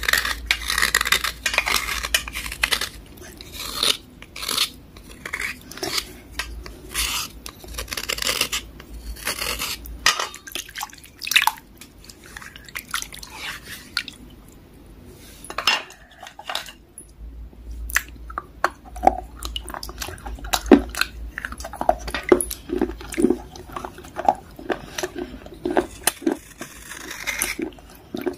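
A thin knife blade scraping and scoring a water-soaked grey block, with irregular short scrapes and sharp clicks, the blade now and then clinking on the metal pan, and water dripping.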